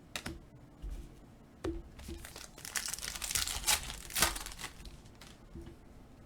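Foil trading-card pack being torn open and its wrapper crinkled, with scattered clicks and a burst of rustling that peaks with a sharp rip about four seconds in.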